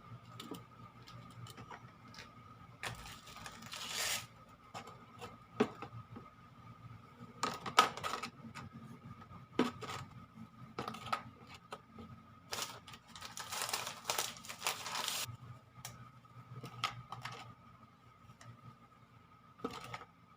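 Kitchen handling sounds: scattered light clicks and knocks of utensils and ingredients, with two spells of rustling, one about three seconds in and a longer one about twelve seconds in. A faint steady hum runs underneath.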